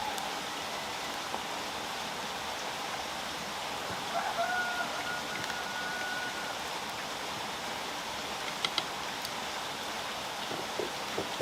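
A rooster crows once, a drawn-out call starting about four seconds in, over a steady rain-like hiss.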